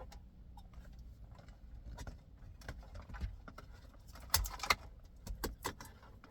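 Plastic wiring-harness connectors and cables being handled and plugged into a car stereo head unit: a string of small clicks and rattles, loudest about four and a half seconds in.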